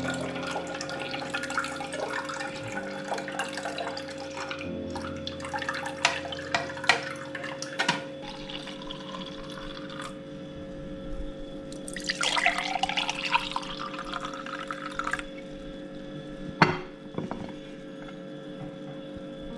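Blended hog plum juice trickling through a mesh strainer into a glass jug, then poured from the jug into a drinking glass, the pour rising in pitch as the glass fills about twelve seconds in. There are a few sharp glass clinks.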